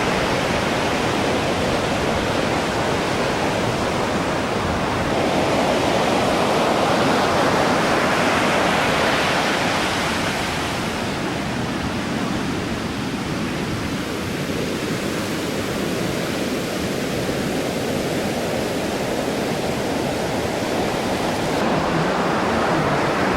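Ocean surf: a steady rushing wash of breaking waves that swells and eases slowly.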